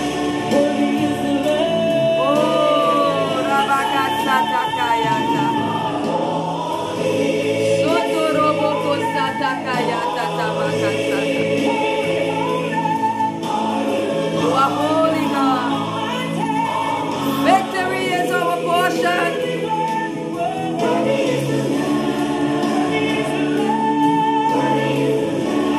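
Gospel worship music: a choir and solo voices singing with vibrato over steady sustained chords.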